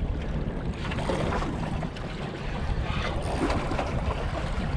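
Wind buffeting the microphone with a steady low rumble, over waves washing against the rocks of a jetty.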